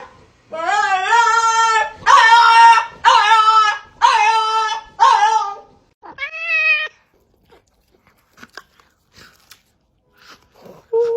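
Cat yowling: six long meows in a row, the last one higher and shorter, followed by a few faint clicks.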